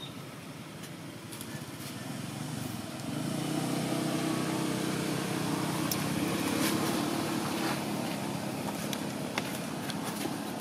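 A motor vehicle's engine runs steadily as a low, pitched hum that grows louder about three seconds in, with scattered small clicks over it.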